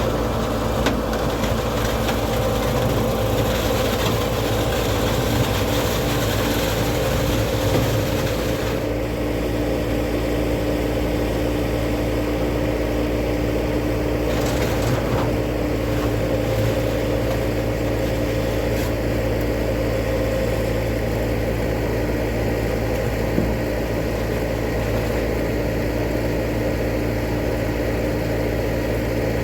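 Truck engine running steadily, a constant low hum with a few held tones; some higher hiss eases off about nine seconds in.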